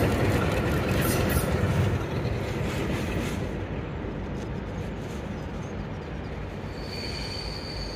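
A passenger train hauled out on its rails, with a Class 47 diesel locomotive at the rear, moves away, its rumble and wheel noise fading steadily. A faint, thin, high steady whine comes in near the end.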